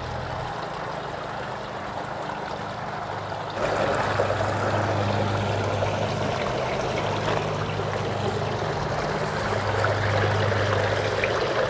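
Garden fountain water running, trickling and splashing steadily over a low hum, louder from about three and a half seconds in.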